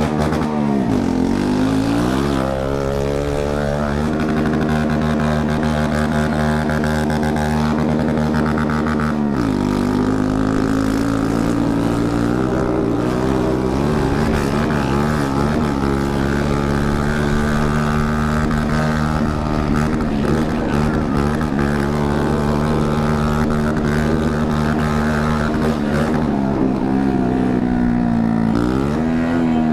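Shineray 49 cc moped engine running under way through an open exhaust pipe with no muffler, a steady drone. The revs drop and climb back about a second in, around nine seconds in, and again near the end.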